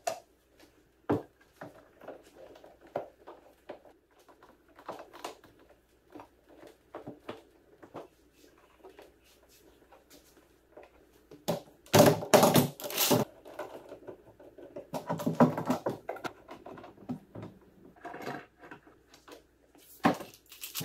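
Steel pipe clamps being laid across a pine board tabletop and set: scattered clanks and knocks of the pipes and clamp jaws against the wood, with clicking from the clamp jaws. There are two louder, busier stretches of knocking a little after the middle.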